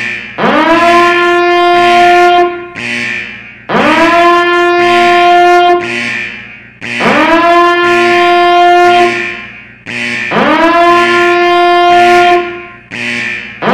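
Alarm siren sound effect: a loud, horn-like tone that swoops up in pitch, holds steady for about two seconds and then fades, repeating about every three seconds, like an evacuation alarm.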